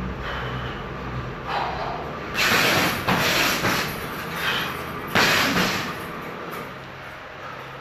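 Boxing-gloved punches landing on a hanging leather heavy bag: three loud strikes, two close together about two and a half and three seconds in and another near five seconds, over a steady low hum.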